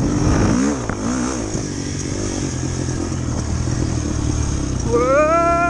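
Motorcycle engines running, the pitch wavering as one revs about a second in; near the end an engine revs up in a quick rising whine, then holds high.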